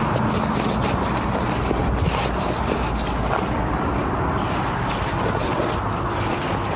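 Fabric rustling and scraping as a compact camping pillow is rolled and stuffed into its bag, over a steady low rumble.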